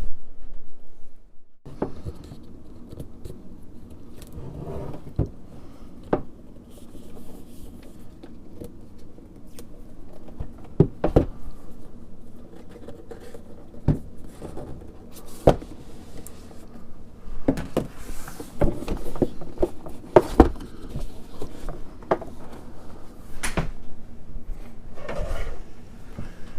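A cardboard product box is being opened and its packaging handled by hand. About a second and a half in, scattered knocks, clicks, scrapes and rustling begin and carry on irregularly.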